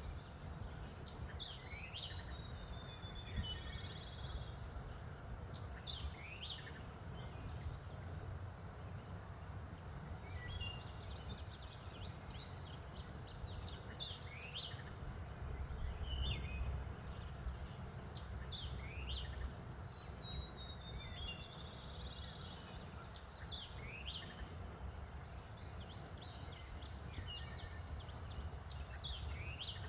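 Songbirds singing: repeated short high chirps and sweeping notes, with a fast level trill twice, over a steady low rumble.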